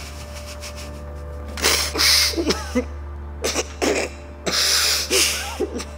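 A person sobbing in distress: several loud, ragged gasps and snorting breaths starting about a second and a half in, with short high whimpers between them.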